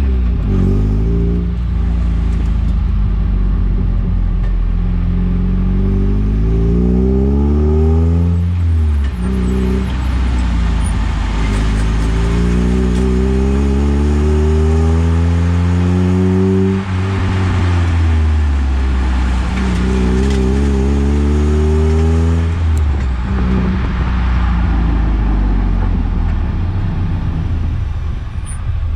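Eunos Roadster's inline-four engine pulling the car through the gears, its pitch climbing for several seconds and then dropping sharply at each shift, over steady road noise.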